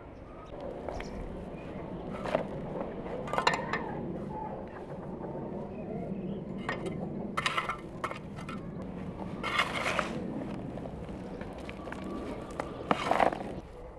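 Garden soil being handled and scooped with a metal scoop while potting plants: irregular crunching scrapes, with five or six louder ones spread through.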